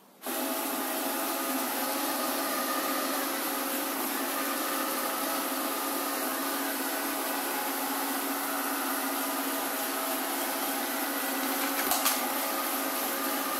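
Alfawise X5 robot vacuum cleaner starting up suddenly and running steadily in automatic cleaning mode: a steady whir of its suction fan with a motor hum. A single brief knock near the end.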